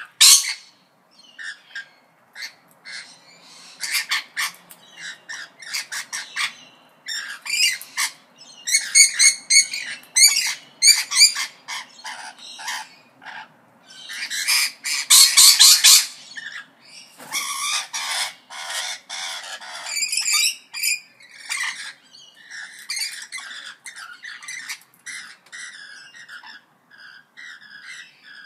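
Parrots squawking and chattering: a busy string of short, harsh calls and warbling trills, loudest in the middle.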